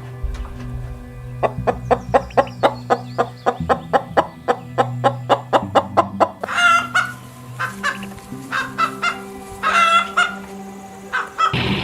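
Chickens clucking: a rapid run of short clucks, about five a second, followed by a few louder, longer squawking calls.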